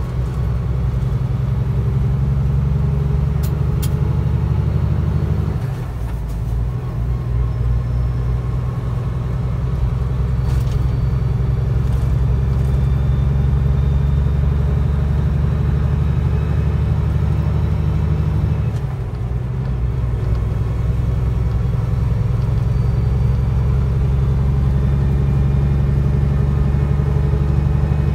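Heavy truck's diesel engine and road noise droning steadily inside the cab while driving. The drone dips briefly twice, about six seconds in and again about nineteen seconds in.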